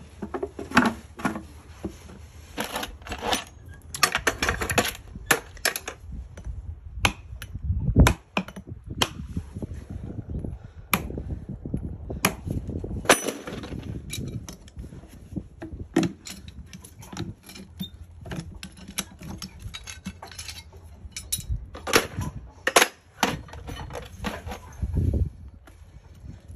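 Farrier's hand tools clinking, clicking and scraping against a horseshoe and its nails as the shoe is worked off a horse's hoof. There are a few duller knocks among the clinks.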